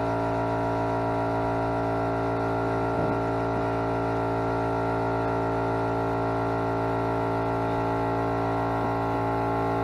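Air compressor running: a steady, unchanging hum made up of several held tones.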